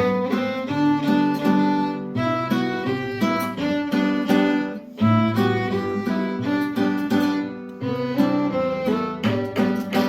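Instrumental music: a violin melody over plucked guitar, with notes changing in a steady rhythm.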